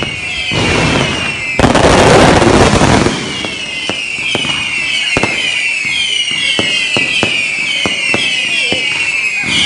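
Fireworks going off. A loud, dense burst of crackling comes about one and a half seconds in. After it, many whistling fireworks sound one after another, each whistle falling in pitch, over scattered sharp pops.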